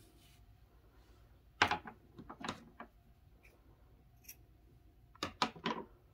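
Handheld scissors snipping through bulky yarn to cut the tail: a few short, sharp clicks in two clusters, about a second and a half in and again near the end.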